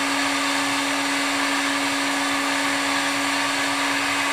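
Steady whir of a running electric motor appliance moving air, with a constant hum that holds one pitch throughout.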